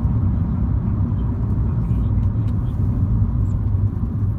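Steady low rumble of a MINI driving on the road, engine and tyre noise heard from inside the car, with a few faint clicks in the middle.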